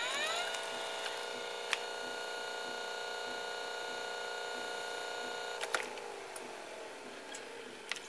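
A motor in an early-1980s Hitachi top-load VCR whines up to speed when Play is selected, holds a steady high whine for about five seconds, then a click and the whine falls in pitch as it winds down. The mechanism does not engage properly.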